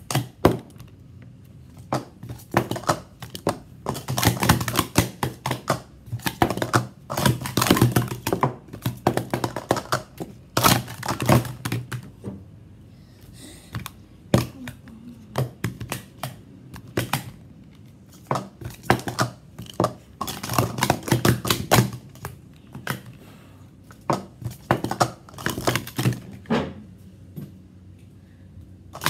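Green Speed Stacks plastic sport-stacking cups being stacked and unstacked fast on a stack mat: quick runs of clattering plastic clicks and taps, in several bursts with short pauses between.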